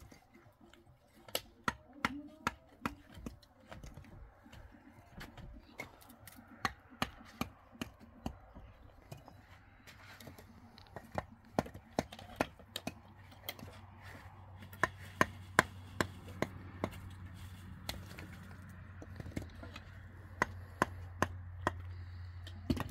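Irregular sharp chopping blows on wood, roughly one or two a second and louder in the second half. A low steady hum comes in about halfway.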